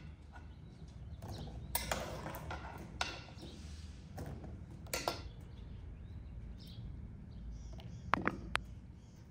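A metal ladle scraping and knocking in an aluminium pot, and boiled chestnuts dropping and rattling into a wicker basket: a handful of separate knocks and clatters, with a quick cluster near the end.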